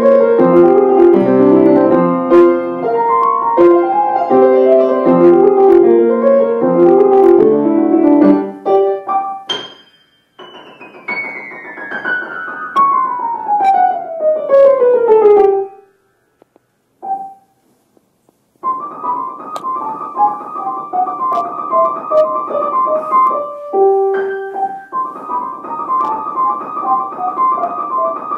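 Grand piano being played: about eight seconds of full chords, then a fast run falling down the keyboard for some five seconds. After a short gap, rapid repeated high notes return twice over a falling line of notes.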